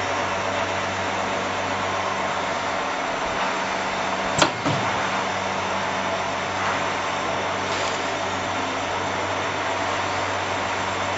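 External nozzle vacuum packing machine running with a steady hum and hiss, with one sharp clack about four seconds in.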